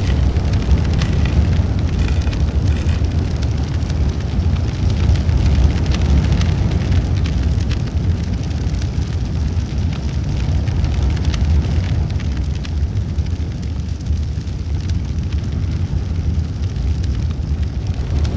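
A large fire burning: a deep, steady rush of flames with scattered crackles and pops, thickest in the first few seconds.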